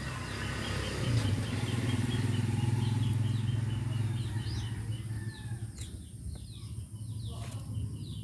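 Birds chirping outdoors: a fast run of evenly repeated short notes for the first few seconds, then scattered short down-slurred chirps. Under them runs a steady low engine-like hum that swells in the first seconds and eases off past the middle.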